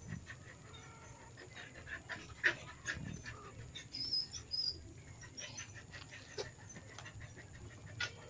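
Faint, high mewing calls from a small kitten, mixed with scattered light knocks and clicks and a few brief high chirps.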